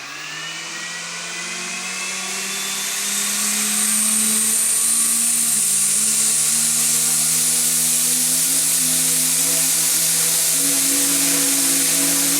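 Scale RC AH-64 Apache helicopter's motor and rotors spooling up: a whine that rises in pitch and grows louder over the first four seconds, then runs steady at speed with a strong high hiss.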